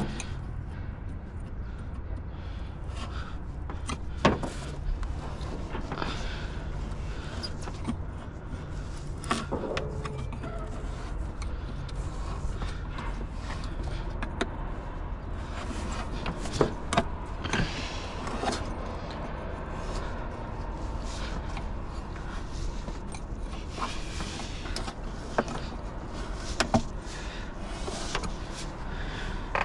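Scattered sharp clicks and knocks of hand work on a pickup's windshield opening, over a steady low rumble.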